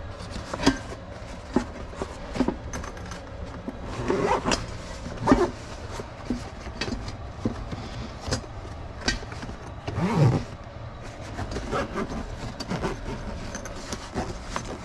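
Zipper being pulled in short runs around the rim of a Snow Peak canvas Dutch oven storage case, with canvas rustling and scattered light knocks as the case is handled.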